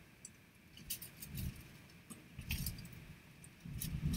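Faint scattered clicks and light knocks of small objects being handled at a desk, with a few soft low bumps between them.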